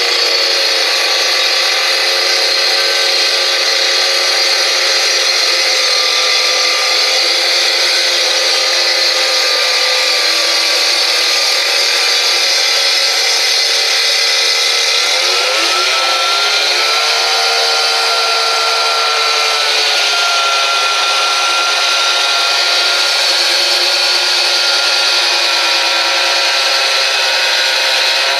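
Hilti cut-off saw running at speed, its blade grinding steadily through a concrete block with water fed onto the cut. A loud, continuous whine whose pitch wavers and shifts about halfway through.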